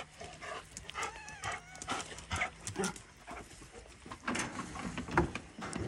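A dog whimpers, with short wavering high notes about a second in, amid scattered rustling and footsteps.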